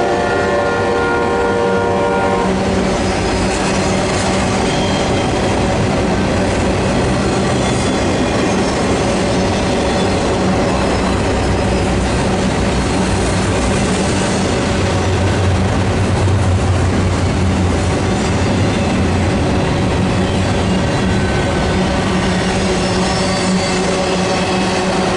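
Double-stack intermodal container train rolling past, a continuous rumble and rattle of wheels on rail and swaying well cars. A train horn chord is sounding at the start and cuts off about two seconds in.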